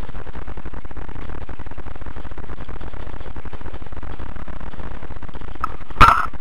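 Steady electrical buzz from a helmet camera's microphone, loud and unchanging throughout, with one sharp loud pop about six seconds in.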